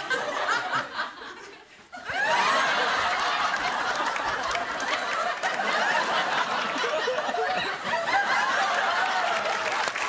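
Studio audience laughing, swelling suddenly into loud, sustained crowd laughter about two seconds in.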